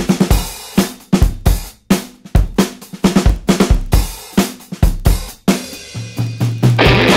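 Background music: a rock drum kit playing a steady beat with kick, snare and cymbals, and a low held note coming in near the end.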